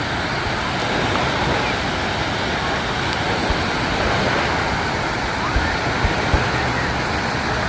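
Steady wash of waves in a water-park wave pool, with distant crowd voices mixed in. A few brief low thumps come a little after halfway.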